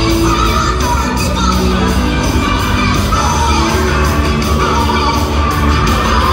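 Loud recorded song with a singing voice and a beat, played over speakers in a gymnasium and echoing in the hall.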